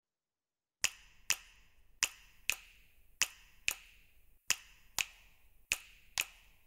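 A steady series of sharp ticks in a tick-tock rhythm, in pairs at about two ticks a second, starting about a second in after silence.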